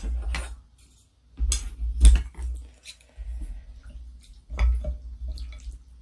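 Wooden chopsticks and spoon picked up and worked into a bowl of ramen: a series of separate clicks and knocks against the bowl, the loudest about two seconds in, with wet sounds of noodles and broth being stirred.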